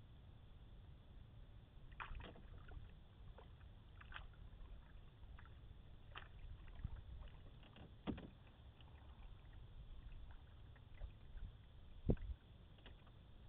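Canoe being paddled, faintly heard: scattered short splashes and drips with knocks of the paddle against the hull, the loudest knock near the end, over a low steady rumble.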